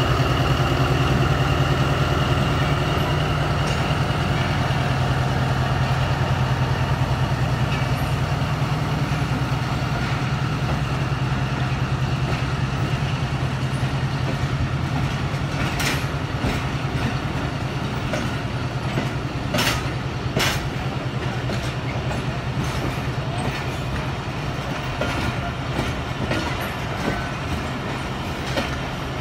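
Pakistan Railways diesel-electric locomotive hauling a passenger train out of the station, its engine drone steady and slowly fading as it goes by. The coaches then roll past, their wheels clicking over the rail joints, with the loudest clicks in the second half.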